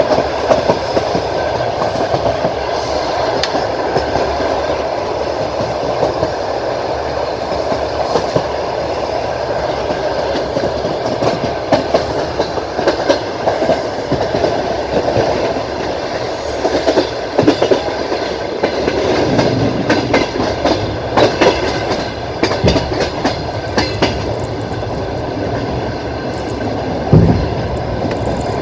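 Passenger train running along the track: a steady rolling rumble of the carriage, with the wheels clicking over rail joints in scattered quick groups, the loudest knock near the end.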